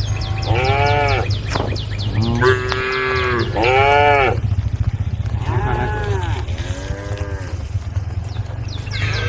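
Cattle mooing: about five separate drawn-out calls in quick succession, over a steady low hum.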